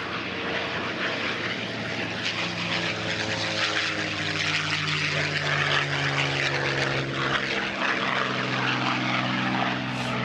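P-51 Mustang's V-12 Merlin engine droning as the fighter makes a pass, getting gradually louder, its pitch sliding slightly lower as it goes by.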